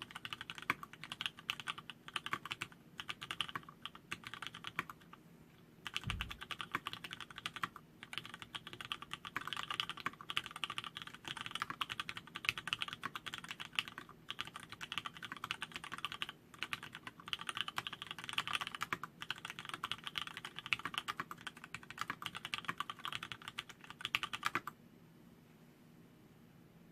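Fast typing on an LZ-IRON custom mechanical keyboard with vintage Cherry MX Black linear switches on 62 g springs, an aluminium plate and black PD keycaps: a dense, rapid clatter of keystrokes. It pauses briefly about five seconds in and stops a couple of seconds before the end.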